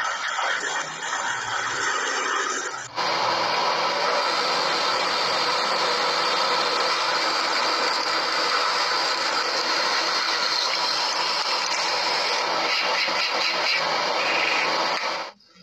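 Metalworking power tool running: an uneven, rattly machine noise, then a sudden cut about three seconds in to a louder, steady running noise that stops abruptly near the end.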